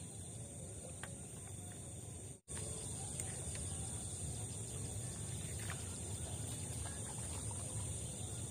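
Rural outdoor ambience: a steady high insect buzz over a low rumble, with a few faint bird chirps. The sound cuts out for an instant about two and a half seconds in.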